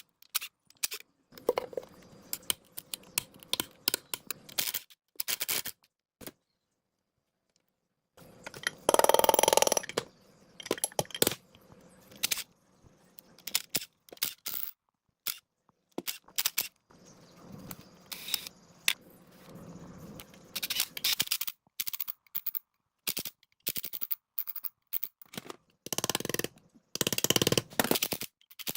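Metal parts and hand tools being worked: a string of sharp clicks, knocks and scrapes, with a louder rushing scrape about nine seconds in and a few seconds of silence just before it.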